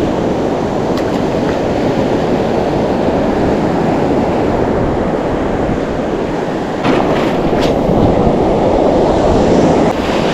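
Steady rush of shore surf and wind against the microphone, getting louder about seven seconds in, with a few short clicks.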